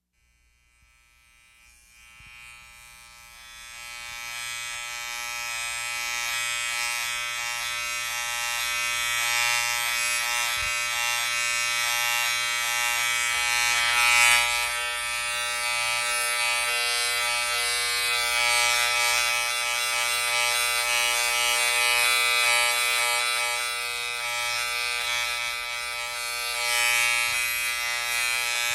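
Vintage electric razor running with a steady buzz rich in overtones. It fades in over the first few seconds, then holds, swelling louder briefly about halfway through and again near the end.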